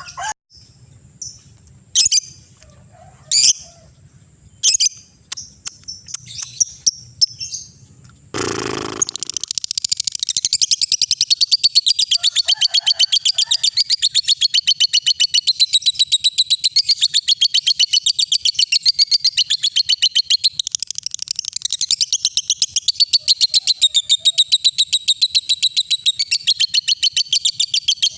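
Lovebird giving scattered single sharp chirps, then, after a brief noisy burst about eight seconds in, breaking into a long unbroken rapid high chatter: the prolonged 'ngekek' song that keepers play to set other lovebirds calling.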